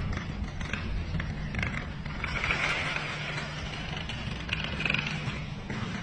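A long chain of dominoes toppling one after another: a running clatter of many small clicks, densest a little past the middle.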